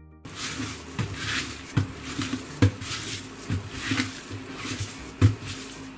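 Hands rubbing and kneading a salt-and-spice dry cure into a raw pork shoulder on a worktop: a rough rasping rub broken by dull thumps as the meat is pressed and turned, two of them louder, one about two and a half seconds in and one near the end.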